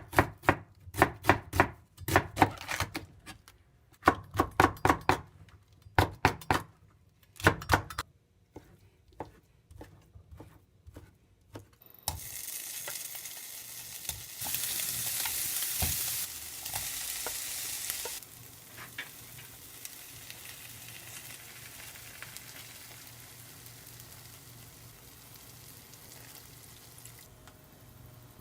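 A kitchen knife chopping on a cutting board in quick runs of strokes. Then, about twelve seconds in, food hits a hot frying pan and sizzles, loudest for a few seconds before settling into a quieter, fading sizzle.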